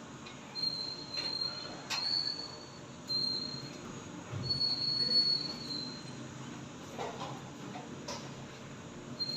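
Fire alarm sounder giving high-pitched, single-tone beeps of uneven length, some about a second long, broken by pauses, with a few sharp knocks in between.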